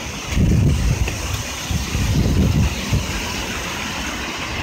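Typhoon wind gusting against a smartphone microphone: two loud, low buffeting rumbles in the first three seconds over a steady hiss.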